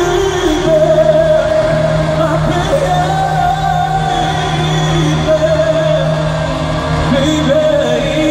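Male pop vocal group singing a ballad live, the lead voice holding long sustained notes over a steady backing.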